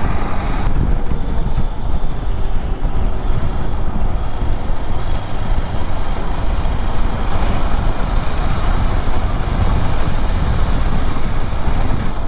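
Steady wind rush on the microphone and road noise from a KTM 390 Adventure X motorcycle being ridden at road speed.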